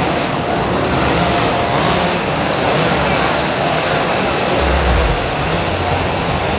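Several chainsaw engines running together, loud and steady, with no let-up.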